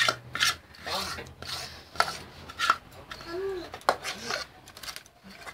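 Hands pressing and smoothing thick cake batter in an aluminium tube cake pan: rubbing, scraping strokes, with several sharp knocks against the metal pan.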